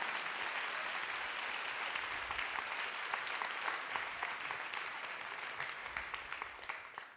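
Audience in a lecture hall applauding, the clapping thinning out and fading away near the end.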